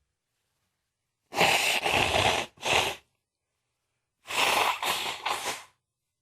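A man sneezing in an allergy sneezing fit: two loud, noisy outbursts about three seconds apart, each breaking into two or three short parts.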